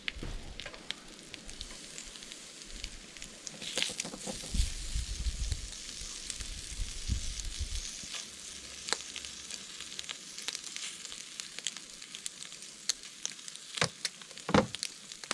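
Chicken and bacon sizzling steadily on the hot mesh grill of a car-rim barbecue over coals. Scattered sharp clicks and taps as the food is handled on the grill, the loudest near the end, and a low rumble for a few seconds in the middle.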